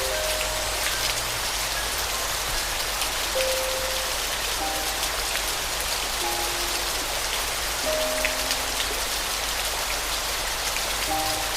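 Steady rain with scattered distinct drops, under a soft, slow piano melody of single spaced notes.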